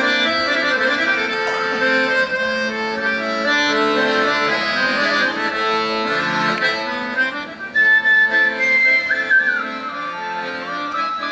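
Garmon (Russian button accordion) playing a folk tune in chords. About two-thirds of the way in, a svirel (folk pipe) comes in with a high single-line melody over it.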